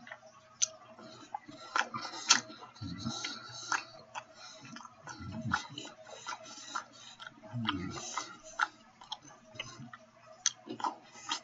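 Close-up chewing of a steak sandwich: irregular wet mouth clicks and smacks, with a few short low vocal sounds between them.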